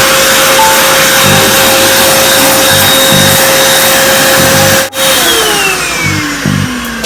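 Vacuum cleaner motor running with a steady high whine, switched off about five seconds in and winding down with falling pitch. Background music with a beat plays underneath.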